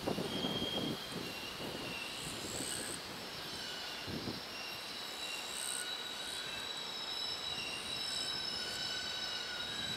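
A container freight train hauled by an EF510 electric locomotive rolling slowly into a yard, its wheels squealing in several high, shifting tones over the tracks. A few low thuds come in the first second and one about four seconds in.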